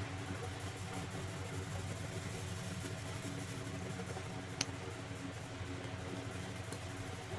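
Steady low mechanical hum, with one sharp click a little over halfway through.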